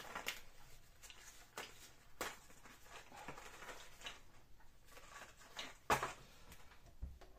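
Small cardboard coffee-capsule boxes and pods being handled: soft rustles and a few light knocks, with a sharper knock about six seconds in.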